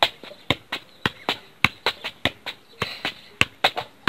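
A football being juggled: a quick, fairly even run of sharp thuds, about four a second, as the foot kicks the ball up again and again.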